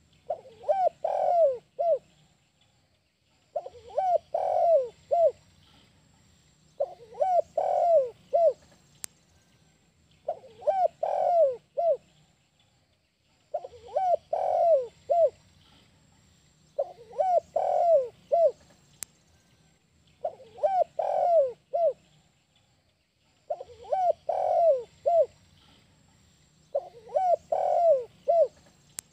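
Spotted dove (tekukur, derkuku) cooing its 'kuk 1' song: a phrase of a few coos ending in one short separate note, repeated about every three seconds without a break.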